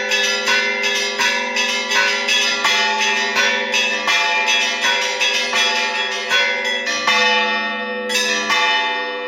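Church bells rung by hand in an Easter peal: smaller bells struck rapidly, about two to three strikes a second, over the lasting hum of the larger bells. The small bells stop for about a second around seven seconds in, then start again.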